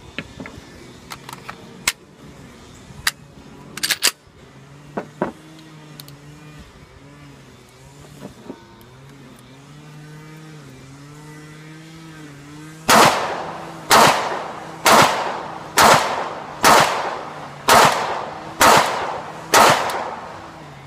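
Eight loud pistol shots fired at a steady pace, about one a second, from a Glock 30 fitted with a 10mm conversion barrel. A few sharp clicks of gun handling come first.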